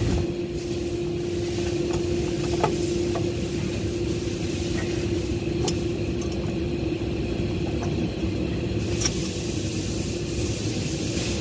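A steady mechanical hum with one constant tone over a low rumble, broken by a few faint clicks.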